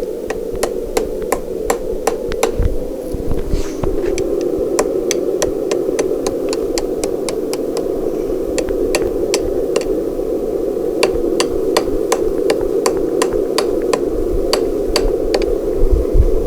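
Blacksmith's hammer striking hot steel on an anvil in a quick run of ringing blows, about three a second, over a steady background noise.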